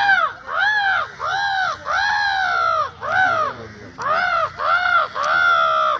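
A man imitating crow caws with his voice: a rapid series of about ten harsh, arched caws with a short gap a little past the middle.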